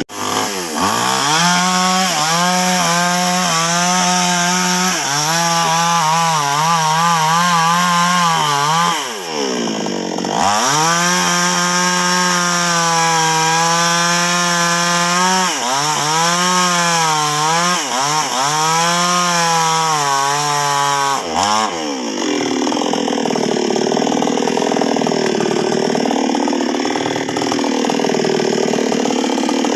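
NWESST 628 two-stroke chainsaw running at high revs and cutting sengon wood. Its pitch dips sharply and recovers about a third in, and several times more as the throttle and load change. For the last third it runs lower and rougher, pulling under load in the cut.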